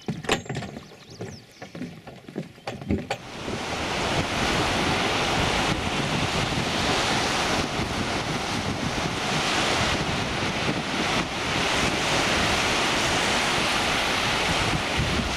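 Footsteps knocking on a wooden plank boardwalk for the first few seconds, then surf breaking on a sandy beach with wind on the microphone, a steady loud rush from about three and a half seconds in.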